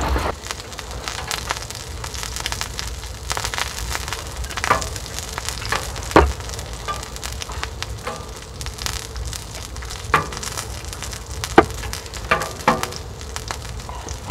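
Wood fire crackling in a camp wood stove, with scattered sharp pops over a steady hiss.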